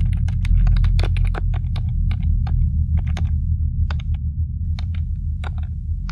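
Fingers typing on a low-profile computer keyboard: quick, uneven keystrokes, several a second, over a steady low drone.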